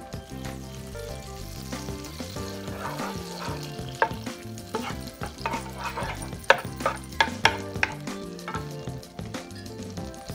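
Butter melting and sizzling in a hot pan while it is stirred, with a utensil knocking against the pan several times between about 4 and 8 seconds in. Background music plays underneath.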